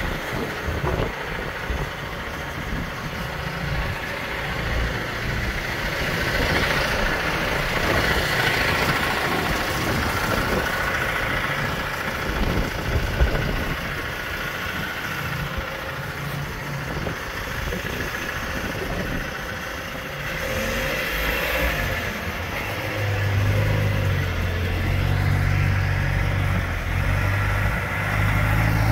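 Manitou MT 1440 telehandler's diesel engine running as the machine drives away. Its low rumble grows louder in the last several seconds.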